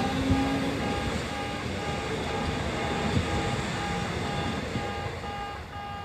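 Electronic warning bell of a Kintetsu level crossing giving its high 'pee-pee' tone about twice a second, over the steady rumble of a train passing through the crossing.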